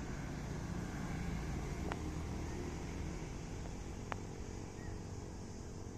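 Low rumble of a distant motor vehicle, strongest in the first half and then easing off, with two faint clicks.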